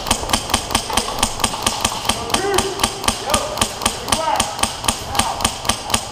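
Airsoft gun firing a steady run of sharp single shots, about five a second.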